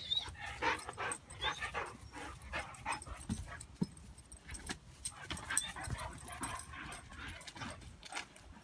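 A German shepherd puppy and another dog playing rough together, with frequent short yips and whines over the scuffle of their paws.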